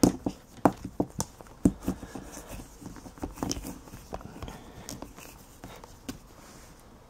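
Handling noise from a camera being moved and set in place: irregular knocks and clicks, close together at first and thinning out after about three and a half seconds, then faint rustling.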